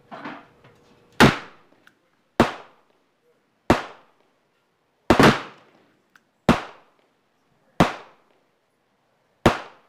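.45 Colt +P 325-grain rounds fired from a Ruger Super Redhawk revolver: a string of sharp gunshots, about one every second and a quarter, eight reports in all, with two close together a little after halfway.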